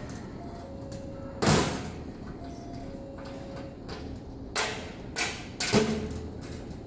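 A few short knocks and clunks over a steady background hum: one about one and a half seconds in, then three close together later on.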